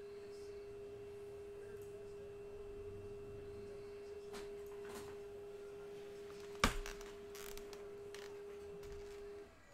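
A steady single-pitched tone held without change for about nine and a half seconds, broken once by a sharp click about two-thirds of the way through.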